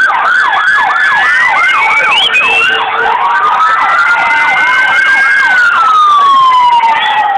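Emergency vehicle sirens sounding loud and close, two at once. One runs in a fast yelp, rapid falling sweeps about three a second, then changes to a slow wail that falls in pitch near the end and starts to rise again. The other holds a higher line above it.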